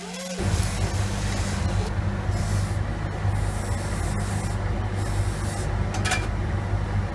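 A workshop machine, of the kind used to clean or polish jewellery, starts about half a second in and runs steadily with a low hum under a loud hiss.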